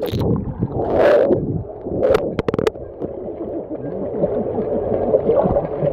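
Muffled underwater sound picked up by a phone in a waterproof case held under the water of a swimming pool: a dull gurgling rumble, with a splash about a second in and a few sharp clicks a little after two seconds.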